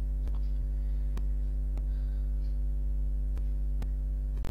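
Steady electrical mains hum picked up by the recording microphone, with a few faint clicks spaced irregularly over it.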